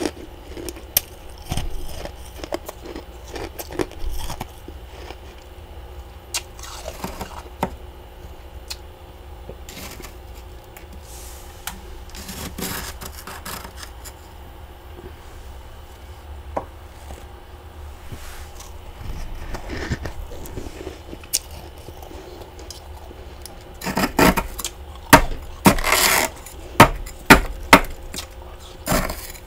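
Small spoon scraping and chipping thick frost buildup off the walls of a freezer compartment, in scattered short strokes with a louder, quicker run of scrapes near the end.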